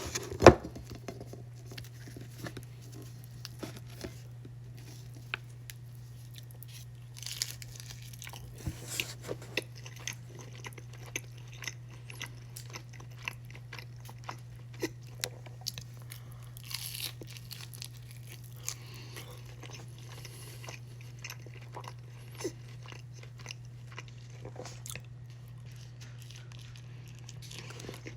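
Close-up chewing and biting of a BBQ chicken quesadilla: crisp tortilla crunching in many short bites, the loudest a sharp crunch just after the start, over a steady low hum.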